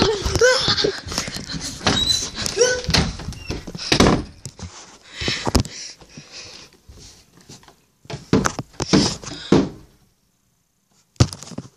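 Irregular knocks and thumps, with a few short squeaky sounds in the first seconds; near the end it goes quiet for about a second, then one sharp knock.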